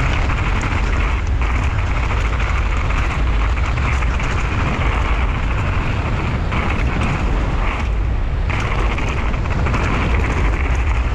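Wind rushing over the microphone and knobby mountain-bike tyres rolling fast over dirt and loose gravel on a downhill run, a steady loud rumble.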